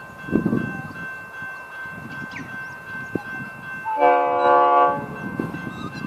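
Train horn sounding one blast of about a second, a little past the middle, over a faint steady high hum.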